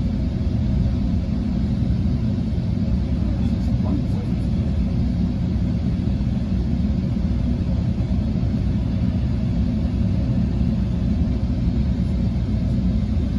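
Steady low rumble heard inside a Sound Transit Sounder commuter train coach as it rolls along the tracks.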